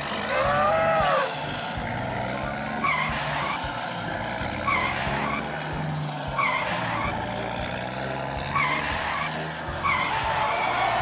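Cartoon racing sound effects: a steady engine hum with a short tyre squeal about every one and a half to two seconds, and a louder rising-and-falling squeal about a second in.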